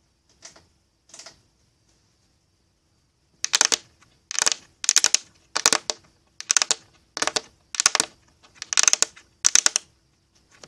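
A run of about ten short crinkly rustles, evenly spaced roughly two-thirds of a second apart, starting a few seconds in after a quiet stretch.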